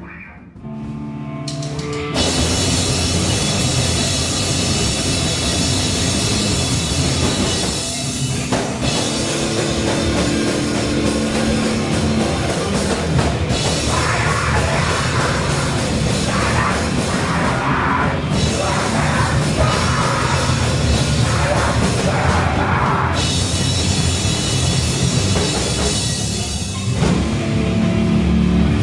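A live rock band playing loud, heavy music with a drum kit. After a few held notes, the full band comes in about two seconds in, with brief breaks about eight seconds in and again near the end.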